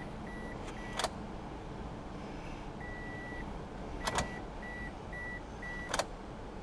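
Car warning chime beeping at about two beeps a second, with one longer tone near the middle, while the ignition key is clicked through its positions three times: about a second in, about four seconds in and near the end. The key is being cycled to prime the new fuel pump and build fuel pressure.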